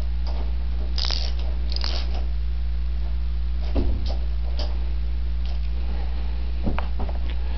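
A hand wrench working the fork clamp bolts on the triple clamps of a Honda ATC250R three-wheeler: scattered light metal clicks and a couple of duller knocks, over a steady low hum.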